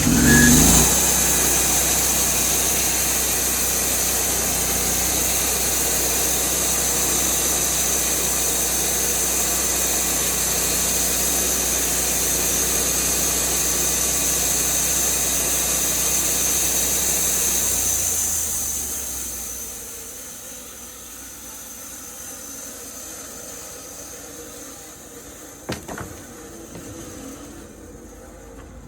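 Sawmill engine running steadily under load, then winding down to a much quieter level about eighteen seconds in, with a couple of short knocks near the end.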